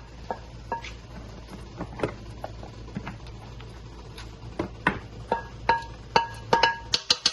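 Pieces of Alaska king crab shell knocking against a metal roasting pan as they are set in. These are a string of sharp clinks, each with a short metallic ring, coming faster and louder near the end.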